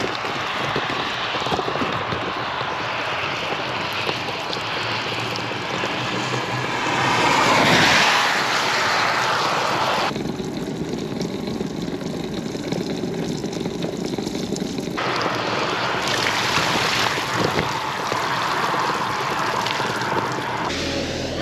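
Bicycle tyres hissing on a wet road surface in rain, with wind noise on the microphone. A passing vehicle swells up and fades away around eight seconds in.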